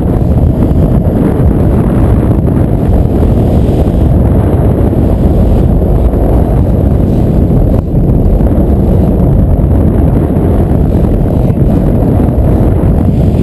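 Loud, steady wind rumble on the microphone over a moving boat, its three outboard motors running and water rushing along the hull.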